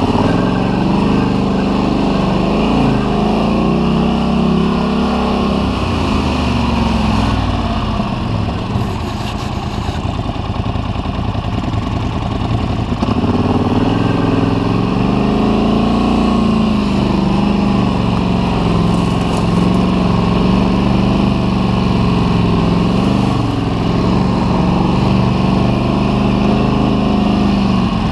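Polaris Scrambler 850 ATV's parallel-twin engine running close up from on board, its revs rising and falling with the throttle. It eases off about eight seconds in and picks up again around thirteen seconds.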